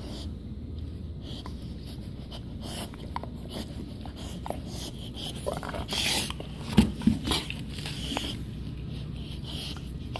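American bulldog puppy breathing noisily and mouthing at a person's hand, in a string of short sniffs and snuffles. A cluster of louder short sounds comes about seven seconds in.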